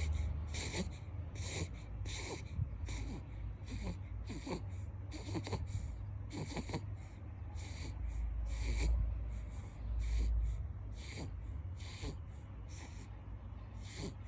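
Snoring: quick, wheezy breaths, about one or two a second, each a short hiss with a faint squeaky whistle that falls in pitch, over a steady low rumble.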